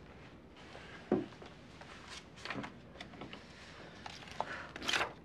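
A soft thud about a second in, then brief papery rustles as the pages of a spiral desk planner are turned, the loudest near the end.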